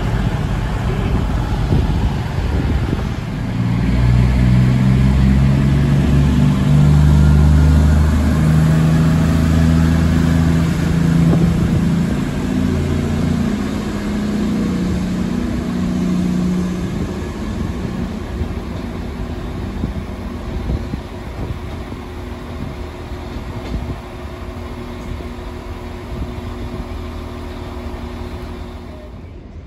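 CrossCountry Voyager diesel multiple unit pulling away, its underfloor diesel engines working hard with a deep note that steps up in pitch, then fading as the train moves off.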